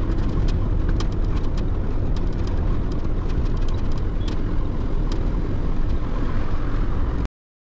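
Lorry cab noise while cruising on a highway: a steady low engine and road rumble with scattered light clicks. It cuts off suddenly near the end.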